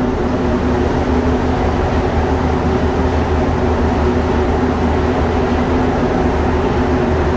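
Montreal Metro rubber-tyred train running, heard from inside a car: a steady, loud rumble with a low, even hum over it.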